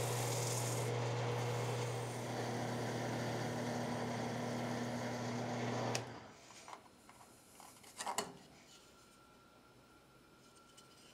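General wood lathe running with a steady hum while sandpaper rubs against the spinning wooden dish held in a jam chuck. The lathe is switched off about six seconds in, and a couple of faint knocks follow as the piece is handled.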